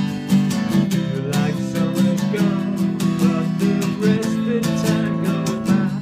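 Acoustic guitar strummed steadily through chords, with a man singing along over the middle of it.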